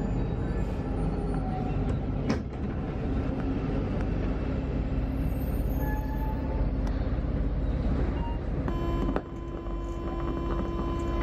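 Rubber-tyred Santiago Metro Line 1 train running through a tunnel, heard from inside the front car: a steady rumble with a sharp click about two seconds in. Near the end the rumble dips and a steady high tone joins in.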